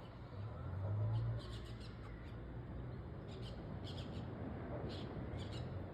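Faint short bird calls and chirps in scattered clusters, over a low rumble that swells briefly about a second in.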